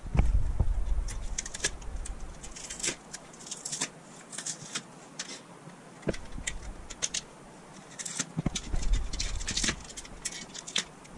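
Sheet-metal and plastic parts of an LED TV being handled and pried apart: scattered clicks and light metallic rattles, with low bumps of handling near the start and again about two-thirds of the way through.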